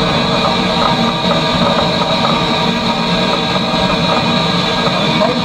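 Footplate noise of the A1 Pacific steam locomotive 60163 Tornado under way: a loud, steady din of running and rail noise with several held tones through it.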